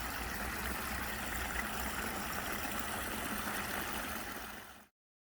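Waterfall's water rushing in a steady, even roar that cuts off abruptly near the end.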